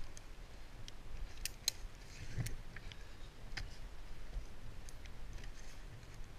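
A few sharp, separate light clicks and taps, scattered irregularly over a low steady rumble.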